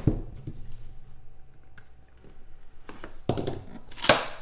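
A trading-card box being handled, with light clicks and taps, a knock about three seconds in, then a brief, loud scrape near the end as its lid is lifted off.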